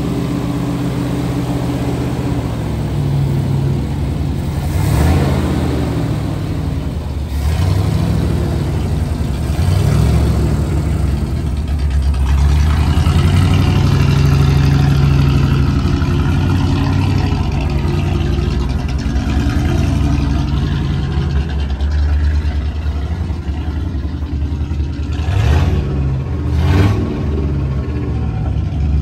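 1965 Ford F600 fire truck's engine running, its speed and loudness rising and falling as it is revved and eased off. A few short rushes of noise come through, twice near the end.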